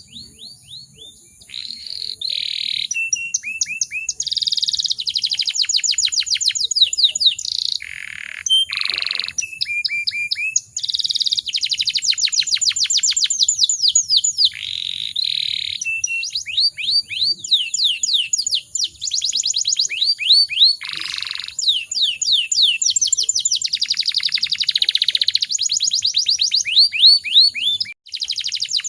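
Canary singing a long, nearly continuous song of fast trills and rolls. Each phrase repeats one short note many times over a second or two before switching to a new pitch.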